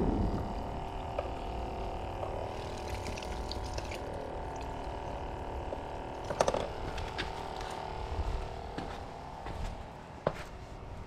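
Footsteps on concrete sandbag riprap as a person climbs down the slope, with a couple of sharp clicks about six and ten seconds in, over a steady hum.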